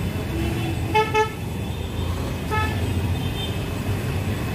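Vehicle horns tooting in passing street traffic: two short toots about a second in and another about a second and a half later, over a steady low traffic rumble.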